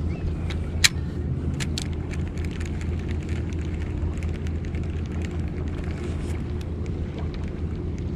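Steady low engine hum, with a sharp click about a second in and light ticking after it from a Daiwa spinning reel: the bail snapping shut after the cast and the reel being wound in.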